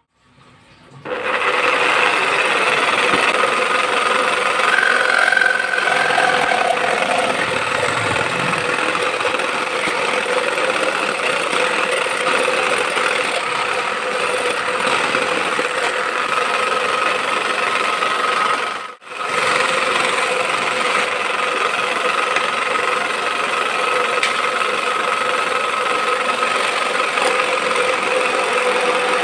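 A small power tool running steadily at constant speed, with a brief break about two-thirds of the way through.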